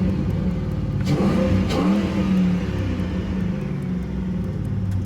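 2006 Ford Mustang engine being revved: held at raised revs, with a brief extra rise and fall about two seconds in, then easing back down toward idle near the end. The owner says it sounds like it has an exhaust leak.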